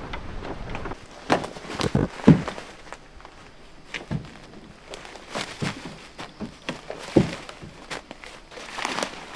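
Footsteps on a forest trail with irregular knocks and thumps as a person walks carrying a canoe overturned on the shoulders; the loudest thump comes about two seconds in.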